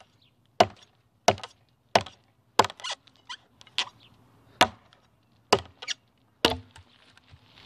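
TOPS El Chete, a quarter-inch-thick 1095 carbon steel chopping blade, hacking into a log: about ten sharp chops, roughly one every 0.7 seconds, stopping about a second before the end.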